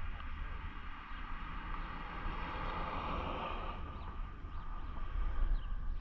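Wind buffeting the microphone as a steady low rumble, with a rush of noise that swells and fades about halfway through.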